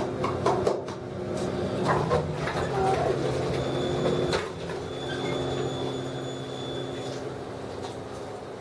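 Otis elevator car running with a steady machine and cab-fan hum and a few clicks. About four seconds in there is a clunk and the hum changes, then a high steady tone sounds for about three seconds.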